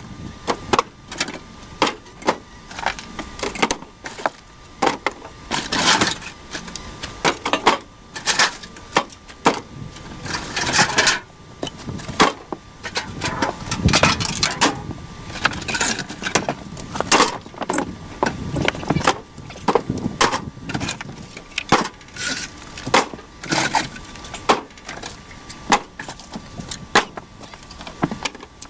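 Demolition of a camper's rotten wooden floor: an irregular run of knocks, cracks and thuds as boards and flooring are broken and pried up, with pieces thrown out into a steel trailer.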